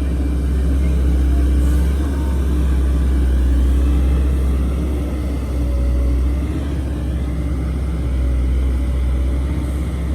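Heavy diesel engine of an excavator or dump truck running steadily with a deep rumble, its level swelling and easing a few times as the load changes.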